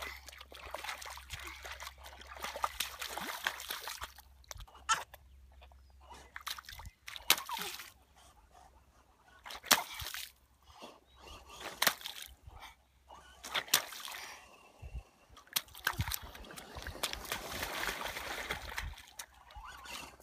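A small child in rubber boots stomping and splashing through a muddy puddle: irregular wet splashes and sloshing of muddy water, at an uneven pace.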